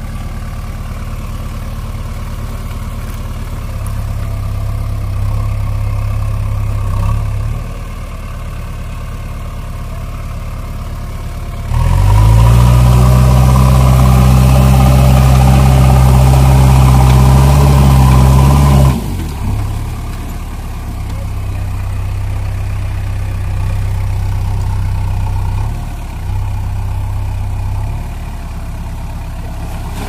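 JCB 3DX backhoe loader's diesel engine running, rising a little a few seconds in, then revved hard and loud for about seven seconds from roughly twelve seconds in before dropping back to a lower run.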